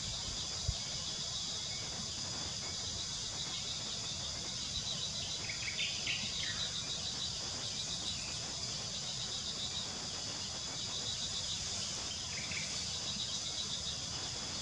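Steady high-pitched chorus of insects, with a pulsing trill joining for a few seconds and a few faint, short bird chirps.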